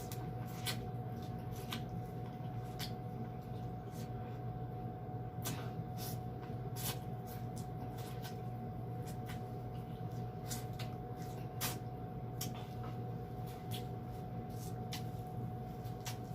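Close-miked eating sounds: irregular sharp clicks and smacks of chewing and lips, roughly one or two a second, over a steady low hum.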